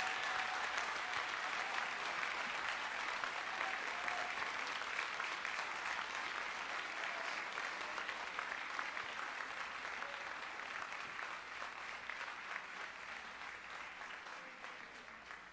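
A large congregation applauding: a dense patter of many hands clapping that slowly dies away.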